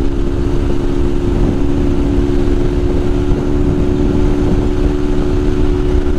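Honda Titan 150's single-cylinder four-stroke engine running at a steady cruising speed, its pitch holding constant, under heavy wind rumble on the microphone.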